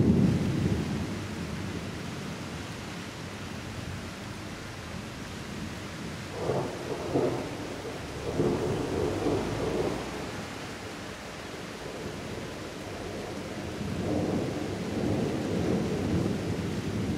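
Thunder rumbling in a thunderstorm: a loud roll dies away at the start, more rumbles come around the middle, and another roll swells near the end, all over a steady hiss.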